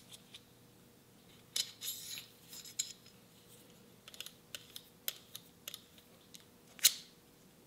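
Small machined steel parts being handled and fitted together by hand. Scattered light metallic clicks and scrapes, a short run of them about two seconds in, and one sharper click near the end.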